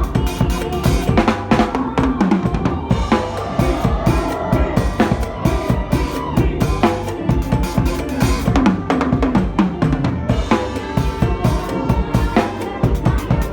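Drum kit keeping a fast, lively mor lam beat, with bass drum, snare and rimshots, over music with melodic lines.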